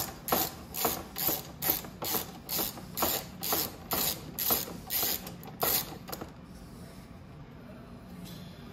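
Ratchet tool clicking at an even pace, about three clicks a second, as a rack bolt is backed out. The clicking stops about six seconds in.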